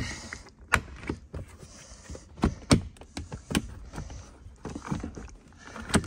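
Plastic interior door trim being worked off by hand, its push-pin clips popping loose in a string of irregular sharp clicks and snaps, with plastic rubbing and creaking between them.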